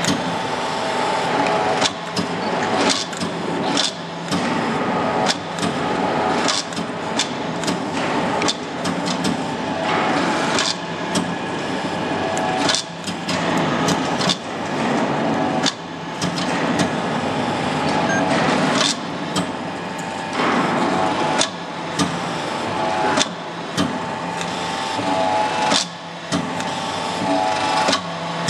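Small 25-ton hydraulic forging press drawing out a hot steel bar: the hydraulic pump runs with a steady whine while the press strokes again and again, each stroke a sharp knock, about one a second.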